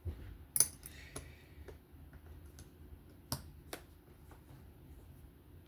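Small metal folding-knife parts clicking and clinking as they are handled during reassembly: a string of sharp, irregular clicks, the loudest about half a second in.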